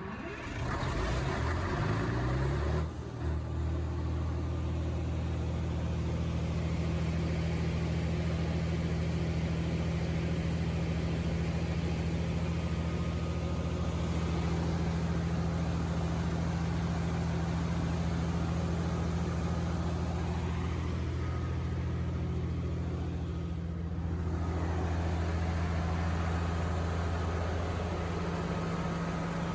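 Perkins diesel engine of an FG Wilson 750 kVA generator set starting and running up to speed over the first few seconds, then running steadily at its governed speed. There is a short dip in level about 24 seconds in, after which the steady running continues.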